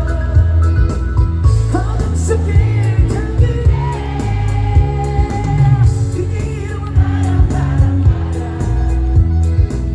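Live amplified pop music: a singer's voice over a band with a steady drum beat and heavy bass.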